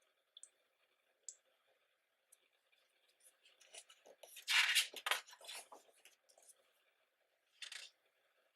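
Glossy photobook pages being handled and turned: a few light ticks of paper at first, then a louder rustling page turn about four to five seconds in and a shorter one near the end.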